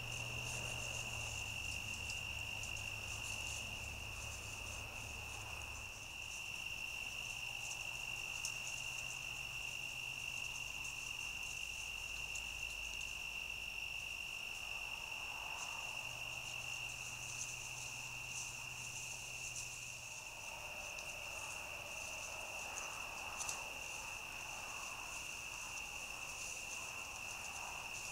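Crickets trilling at night: one steady high trill that never breaks, with a fainter, flickering insect chirring higher above it.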